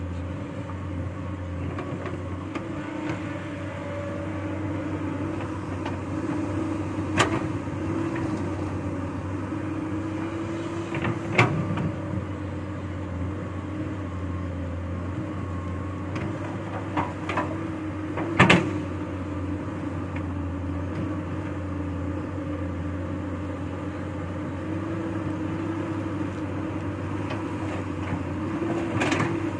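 Komatsu hydraulic excavator's diesel engine running steadily under load while digging and loading, with several sharp knocks of bucket and rock striking, the loudest about eighteen seconds in.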